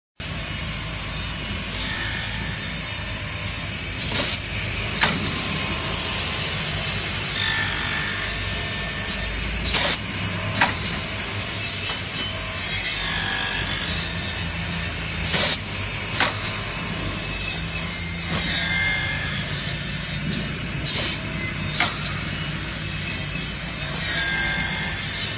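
CSAMS-35C automatic aluminium profile milling and cutting machine running through its corner-key cycle: a steady machine hum, pairs of sharp clacks, and a high whine that dips at its end as the blade cuts the aluminium profile. The cycle repeats about every five and a half seconds.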